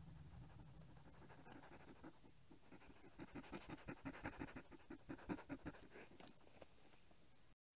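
Indian crested porcupine sniffing right at the trail camera: a run of quick puffs, about five a second, starting a few seconds in and lasting about three seconds, over faint hiss.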